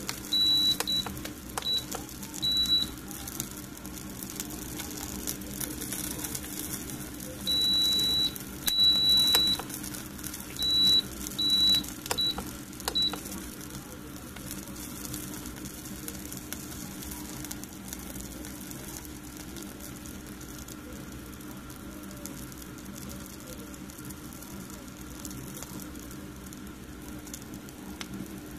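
Electronic beeper sounding a single high-pitched tone in an irregular series of short and longer beeps, in two clusters over the first half, over a steady background hum.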